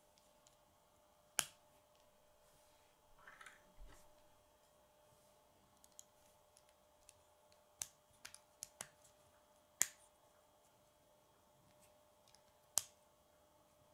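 Plastic K'nex rods and connectors snapping together as pieces are pressed into place: sharp clicks, the loudest about a second and a half in, around ten seconds and near the end, with a quick run of smaller clicks around eight seconds. A brief rustle of the plastic pieces being handled about three seconds in.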